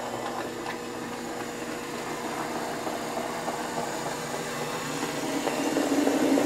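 Small electric motor and gears of a Hornby Class 29 OO gauge model diesel locomotive whirring steadily as it runs at its slowest possible speed, at about 20% power on a DC controller. It gets louder near the end as the model comes close.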